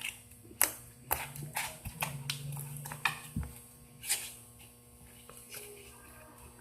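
Slime being handled and pushed into a plastic container: a string of short soft clicks and taps, sparser and quieter after about four seconds.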